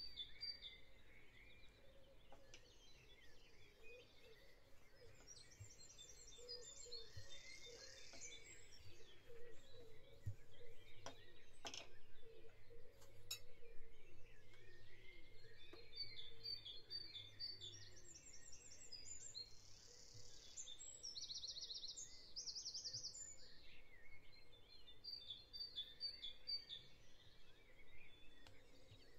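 A recorded dawn chorus of several birds singing: chirps and repeated rapid high trills in bouts over a faint steady background. A few sharp clicks come near the middle.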